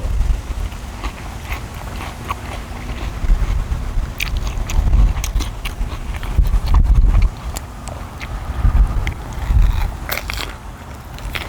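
Close chewing and biting of grilled beef tenderloin, with short clicks and mouth sounds scattered throughout. Wind rumbles on the microphone in gusts, strongest about five, seven and nine seconds in.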